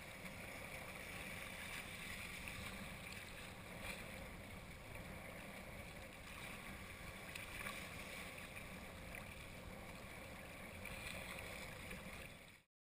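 Wind and choppy lake or sea water splashing around a camera held just above the surface: a steady rushing noise that swells and eases slightly. It cuts off suddenly near the end.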